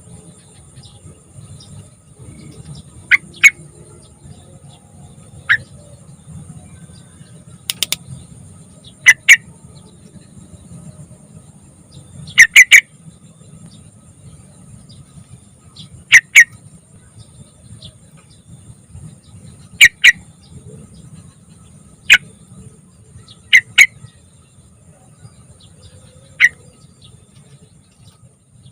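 Yellow-vented bulbul (trucukan) giving short, sharp calls, singly or in quick pairs and once in a run of three, every few seconds. A faint steady high hiss and a low rumble run underneath.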